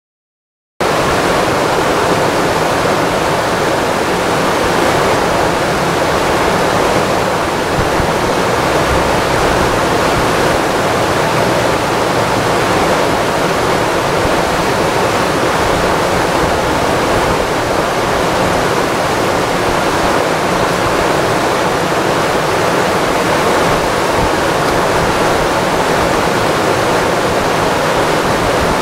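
Steady rushing of river rapids, which cuts in suddenly about a second in.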